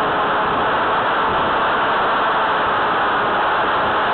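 Steady rushing noise picked up by the camera on board a Firebird Stratos electric RC plane in flight: its motor and propeller mixed with airflow over the camera, unchanging throughout.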